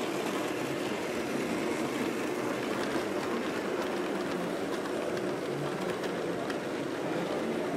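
Tinplate toy trains running on metal track: a steady rattling whir of wheels on the rails, with faint clicks.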